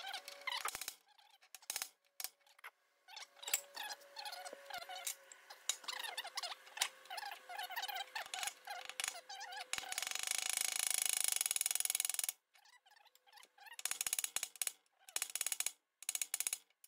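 Ball-peen hammer lightly tapping a new steel bearing race into an Allis-Chalmers D17 front wheel hub: a scatter of small, irregular metal taps. A steady hiss lasts about two seconds partway through.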